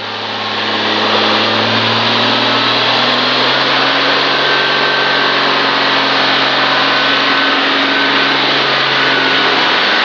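Chevrolet 4.1-litre straight-six engine running steadily on wood gas under load, driving an alternator with its governor holding the speed. The sound grows a little louder over the first second, then holds even.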